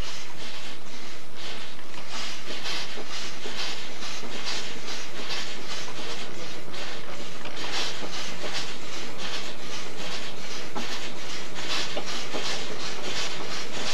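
Portable steam engine running steadily under belt load, driving a threshing drum: a regular exhaust chuff about twice a second over a continuous hiss of escaping steam.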